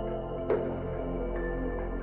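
Soft ambient background music with long held notes and a note struck about half a second in.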